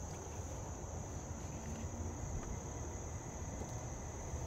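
Steady, unbroken high-pitched insect chorus, over a low rumble.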